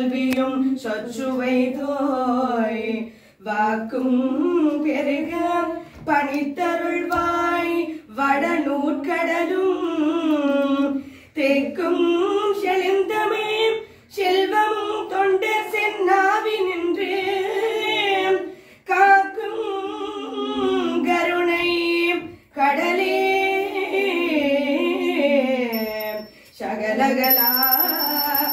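Women singing a Tamil devotional hymn to Saraswati, a sung line of a few seconds at a time with short breaks for breath between the lines.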